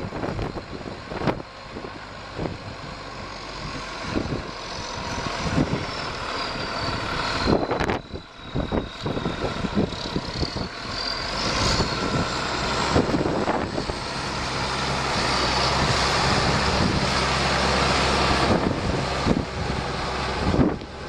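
The New Holland TG230 tractor's diesel engine running, with a high whistle that drops in pitch and then climbs again. There are scattered knocks, and the engine grows louder about two-thirds of the way through.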